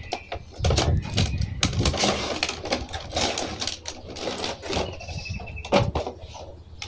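Clear plastic blister tray and cardboard box of an action-figure set crinkling and clicking as they are handled and the tray is slid out. A brief high squeak comes about five seconds in.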